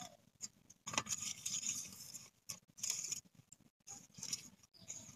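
Fingers rubbing spice-coated halved boiled eggs around a stainless steel plate: soft scraping and rubbing against the metal in a few short bouts.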